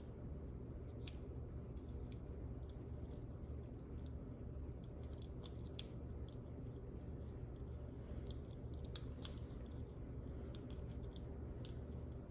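Faint, scattered small clicks and taps of hands working small parts of a drone camera gimbal into place, over a steady low hum.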